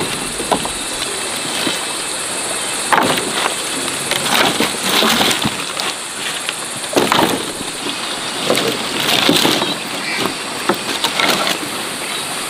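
Branches and woody storm debris being broken and moved, with irregular cracks and rustles over a steady high hiss.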